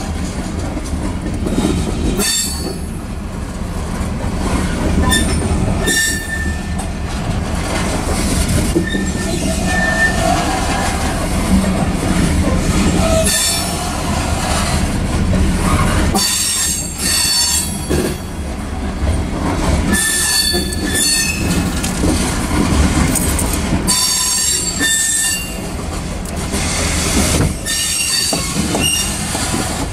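Covered hopper cars of a grain train rolling past: a steady rumble of steel wheels on rail, with short high-pitched wheel squeals coming and going.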